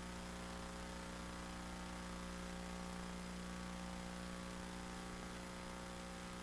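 Steady electrical mains hum with a faint even hiss underneath, unchanging throughout.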